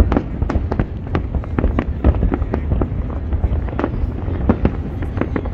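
Aerial fireworks in a dense barrage: shells burst in rapid, overlapping booms and sharp cracks, several a second, over a continuous low rumble.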